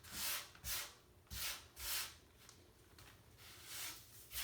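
Sand being shaken out of a plastic bag, rustling in a run of swishes about half a second apart, which die down for a second or so before a couple more near the end.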